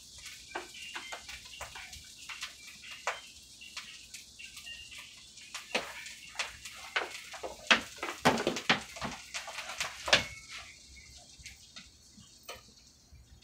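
Burritos frying in butter in a skillet: a steady sizzle with many crackles and pops, the loudest pops about eight to ten seconds in.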